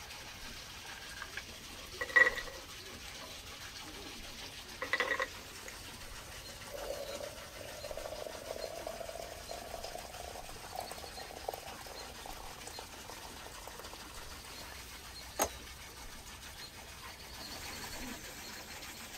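Liquid being poured into a vessel, the faint pouring tone rising slowly in pitch over several seconds as it fills. Two brief sounds come before it, and a single sharp click follows a few seconds later.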